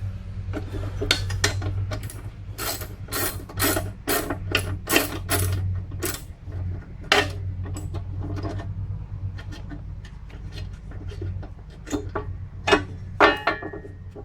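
Hand ratchet wrench clicking in quick strokes, about two or three a second, as a bolt is worked loose. The strokes then turn sparse and come in a short burst again near the end. A steady low hum runs underneath.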